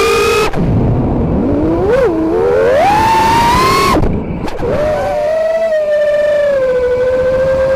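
FPV racing quadcopter's Dragonfly Hurricane 2207 2500KV brushless motors whining, their pitch following the throttle. The whine dips about half a second in and then climbs higher. It drops off abruptly about four seconds in and comes back to a steady whine.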